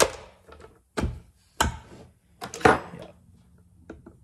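A handful of sharp knocks and clunks as the plastic top cover is pressed back onto a Husqvarna 61 chainsaw, the loudest about two and a half seconds in, with a few light ticks near the end.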